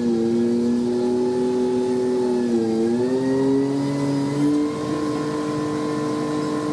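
Liebherr mobile crane's diesel engine running at raised revs to drive the lift, its pitch rising at the start, dipping briefly about two and a half seconds in, then climbing again a little after four seconds and holding steady.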